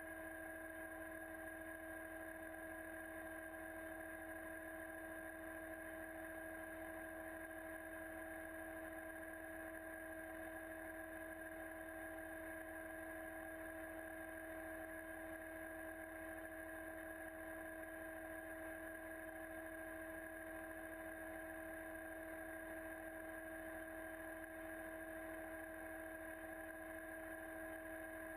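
A steady, unchanging hum made of a few constant tones.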